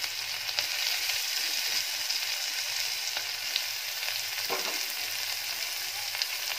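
Whole spices (bay leaf, cardamom, cloves, cinnamon) frying in hot ghee in a kadai: a steady sizzle with scattered small pops and crackles.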